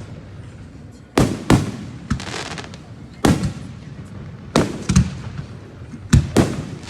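Fireworks going off: sharp bangs from bursting shells, mostly in quick pairs about a second or so apart, each trailing off.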